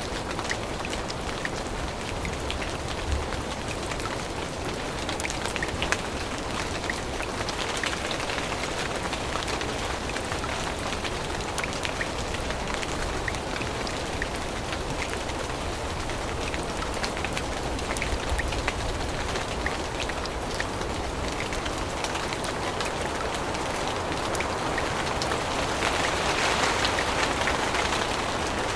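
Steady rain falling through forest foliage, with many scattered individual drop ticks; the rain swells louder near the end.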